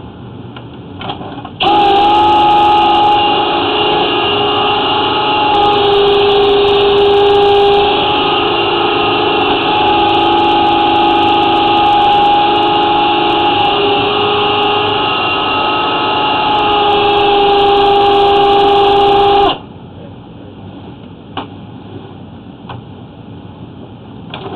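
Flexshaft drain-cleaning machine's motor running steadily, spinning the chain cutter inside the sewer line to cut out tree roots. It starts suddenly a couple of seconds in and cuts off a few seconds before the end, its pitch shifting slightly up and down as it runs.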